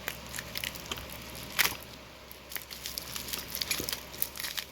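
Hands unwrapping a taped package: crinkling and tearing of packing material with scattered sharp clicks, one louder about a second and a half in, and busier crackling near the end.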